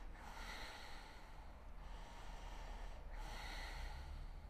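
A woman breathing Ujjayi breath, slow, audible breaths drawn through a narrowed throat with a soft ocean-like hiss, each swell lasting a second or more. The breathing is faint.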